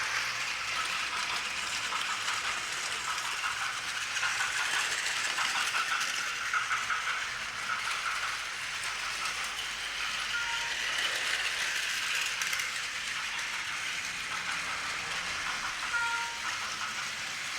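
Battery-powered toy trains running on their track, a steady rattle of small motors and wheels. Short electronic sound-effect tones sound about ten seconds in and again near the end.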